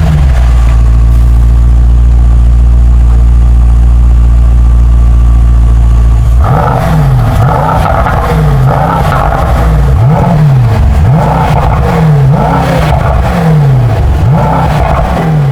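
Mercedes-AMG GT 63 S E Performance's twin-turbo V8 held at a steady speed for about six seconds, then revved in quick blips about once a second, each rising and dropping back.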